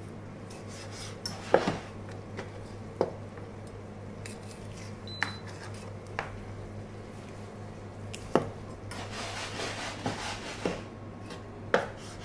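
Kitchen knife working on a plastic cutting board as a rabbit leg is boned: scattered knocks and scrapes of the blade, with a short high beep about five seconds in, over a steady low hum.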